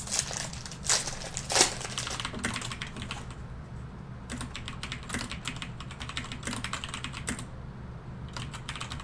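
Computer keyboard typing: a quick, irregular run of key clicks, with a few louder clacks in the first two seconds.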